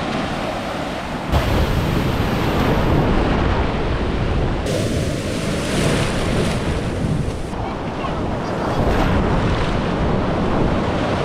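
Gulf surf breaking on a beach, with wind buffeting the microphone. The roar changes abruptly a few times, about one, five and seven and a half seconds in.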